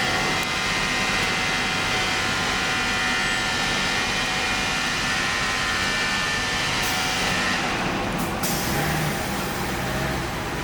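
Street traffic with a heavy vehicle running close by. A steady, higher-pitched mechanical sound stops about eight seconds in, leaving lower traffic noise.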